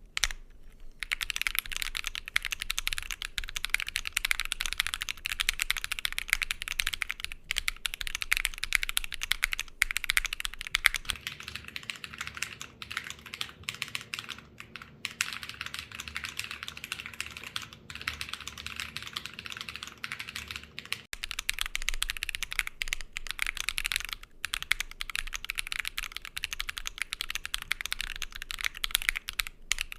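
Continuous fast typing on a Keychron Q10 mechanical keyboard fitted with BSUN Cliff switches, Thock King Sonic Blue keycaps and a POM plate: a quick stream of keystrokes with a few brief pauses.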